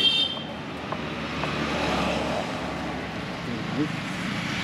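Outdoor traffic noise: a vehicle engine rumbling steadily, with a car horn cutting off about half a second in.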